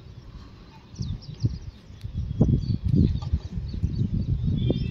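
Outdoor ambience with birds chirping faintly. From about a second in, a loud, irregular low rumbling buffeting covers them, and a short bird call comes near the end.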